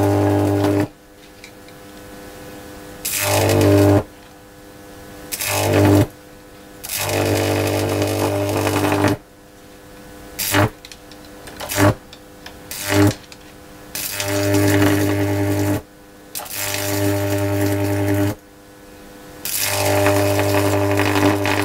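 Microwave oven transformer arc at full variac voltage, struck between a screw electrode and a grounded metal rod: a loud buzzing hum with a hissing crackle. It is struck about nine times, most arcs lasting one to two seconds and a few brief snaps in the middle.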